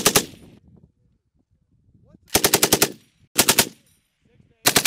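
M240B 7.62 mm belt-fed machine gun firing short bursts of rapid, evenly spaced shots: the end of one burst at the very start, then three short bursts from about two seconds in, the middle one the briefest.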